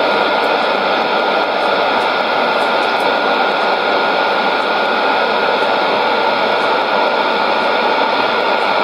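Sony ICF-2001D receiver in AM mode on 11835 kHz giving out steady shortwave static and hiss, with a thin steady whistle running through it. No programme audio comes through the noise.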